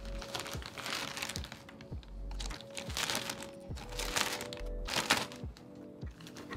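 Clear plastic wrapping crinkling in several bursts as a bagged cable is lifted out of a packing box and handled, over chill background music with a steady bass line.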